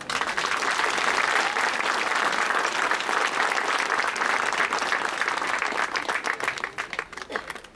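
Crowd applauding, starting at once and thinning out to scattered claps near the end.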